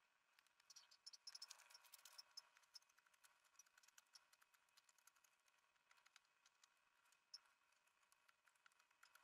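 Faint crisp snicks of a hand carving blade paring shavings off a green birch cup blank. A quick cluster of small cuts comes about a second in, then scattered single cuts.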